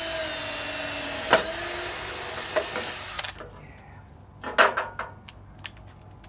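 Electric drill running steadily as it bores a hole for a larger screw, its pitch dipping slightly under load, with a sharp knock partway through; it stops about three seconds in. A few clicks and knocks follow.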